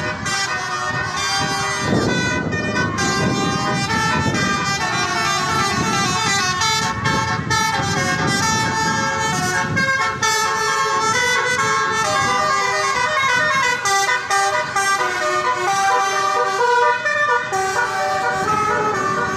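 Tour bus's Basuri telolet horn playing a long melody: several horn trumpets sounding together in quick stepped notes that change pitch every fraction of a second and go on without a break.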